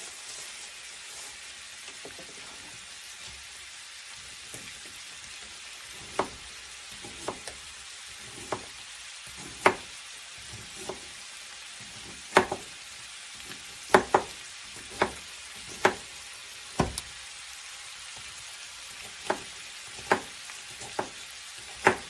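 Ground beef sizzling in a skillet with a steady hiss. From about six seconds in, a knife chops an onion on a cutting board in sharp, irregular knocks, roughly one a second.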